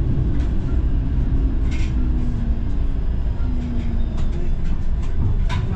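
Streetcar running on its rails, heard from inside the car: a steady low rumble with a few sharp clicks and rattles near the end.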